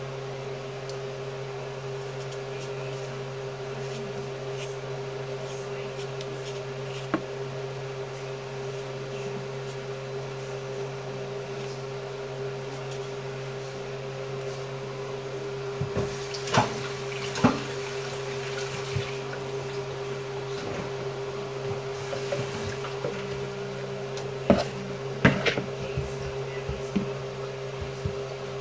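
Steady low hum from a kitchen appliance. Over it come a few sharp knocks of a knife cutting an onion on a wooden cutting board: two about halfway through and a quick cluster near the end.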